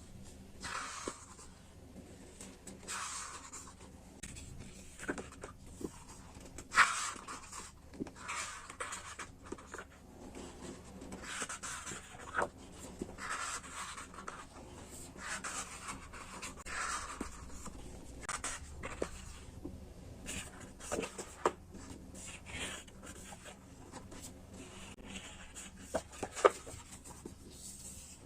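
Stationery and its packaging handled by hand at close range: repeated short rustles and crinkles, with sharp taps and clicks here and there, the loudest about seven seconds in.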